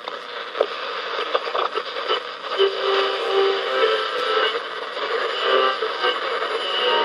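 Westinghouse H968PLA transistor clock radio being tuned across the AM band. Crackling static gives way, from a couple of seconds in, to held whistling tones and snatches of station audio as the dial passes stations.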